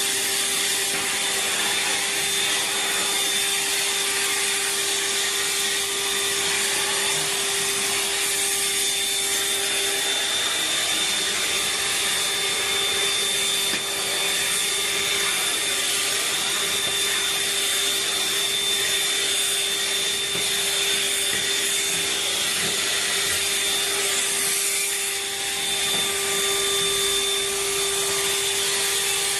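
Vacuum cleaner running steadily: a constant whine over rushing air noise, with brief small dips.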